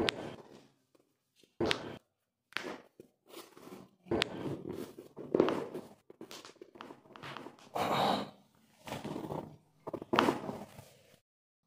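Scattered thumps and rustling from a chiropractic treatment session, with a few sharp knocks, one about two seconds in and another near the end.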